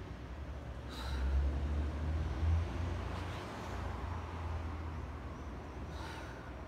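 A person breathing hard in short, sharp breaths, about three of them, while moving through yoga exercises, over a low rumble that swells in the first half.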